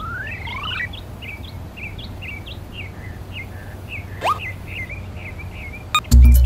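Birds chirping in quick short calls over a steady low background rumble, with a brief rising sweep about four seconds in. Music with a heavy bass beat starts just before the end.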